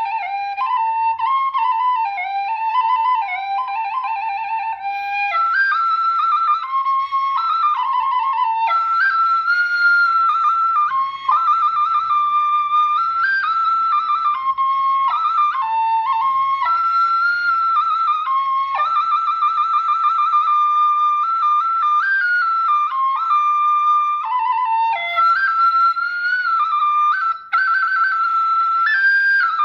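Khmer khluy bamboo flute playing a slow, ornamented melody with a wavering vibrato on its held notes. The tune moves up to a higher register about five seconds in and pauses briefly near the end.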